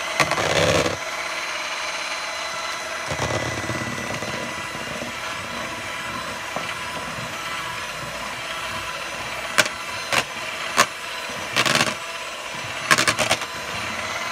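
Electric hand mixer running steadily, beating egg yolks into stiffly whipped egg whites in a plastic bowl. Its beaters knock against the bowl several times in the last few seconds.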